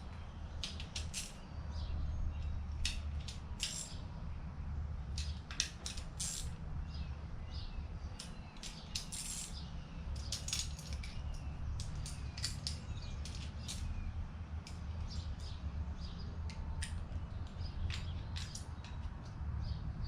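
Hand-tool work on a small-block engine: irregular light metallic clicks and clinks of tools and parts over a steady low hum.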